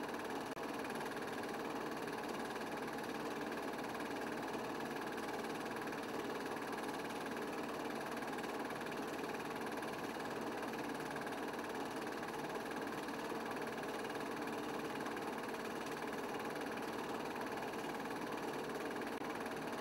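Steady mechanical whirr with hiss, unchanging throughout, with no revving or passing engine sounds.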